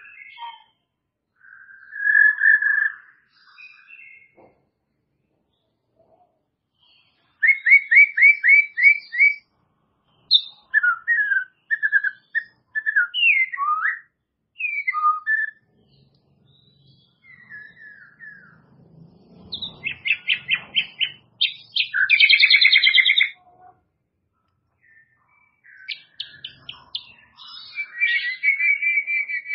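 White-rumped shama (murai batu) singing: varied whistled phrases separated by short pauses, with a quick run of repeated notes about a quarter of the way in and a loud rapid trill past the middle.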